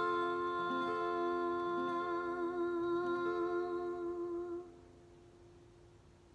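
A woman's voice holding one long final sung note with vibrato over an acoustic guitar; the note and the guitar stop together about four and a half seconds in.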